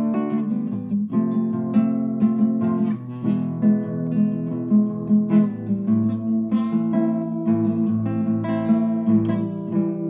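Solo acoustic guitar playing chords, strummed and plucked, with new notes struck several times a second.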